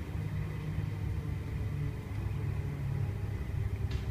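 Steady low rumble heard inside the carriage of an S-set double-deck electric train, with a faint click near the end.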